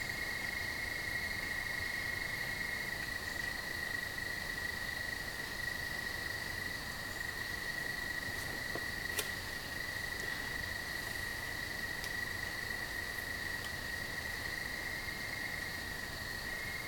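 Crickets chirping in a steady, unbroken high-pitched trill: the last of the summer crickets.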